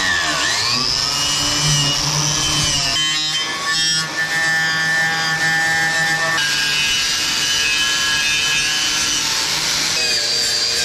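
Corded angle grinder grinding the steel mower deck, its motor whine dipping and recovering as the disc bites into the metal. The deck is being ground down around a crack to prepare it for welding.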